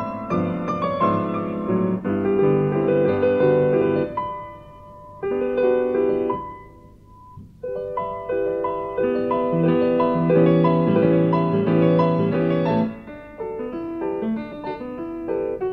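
Classical piano four hands: two pianists playing one piano. The playing goes soft and sparse for a few seconds near the middle, down to a few quiet held notes, then resumes fuller.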